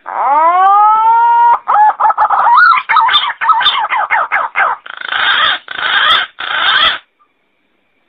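Green pigeon (punai) calling: a long whistle that rises and then holds, followed by a run of quick, wavering whistled notes and three harsh, noisy notes near the end.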